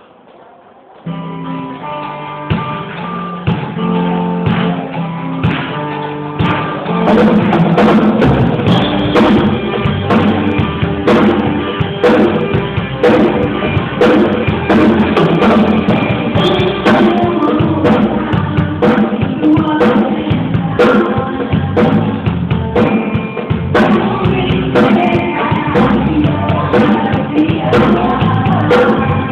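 Worship band music that starts about a second in, with guitar and a drum kit, filling out into the full band around seven seconds in.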